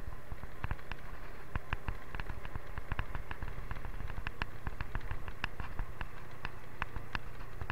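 Motorcycle on the move: a steady low rumble of engine and road noise, with many short, irregular clicks and crackles over it.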